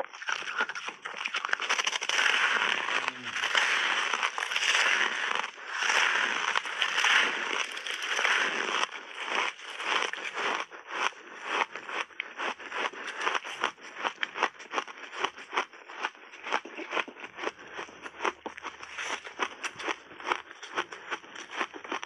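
Loud, close crunching of a block of frozen mixed ice being bitten and chewed: dense crunching for the first several seconds, then a rapid run of separate sharp cracks, several a second.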